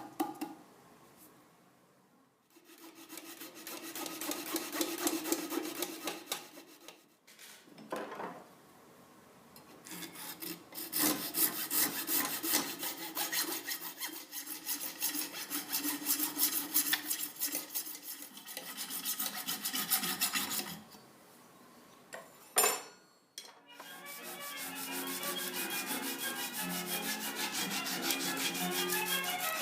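Fast, even rubbing strokes of a hand-held abrasive tool working wood or steel, in two long runs. A single sharp knock comes about two-thirds of the way through, then a steadier, more even scraping takes over.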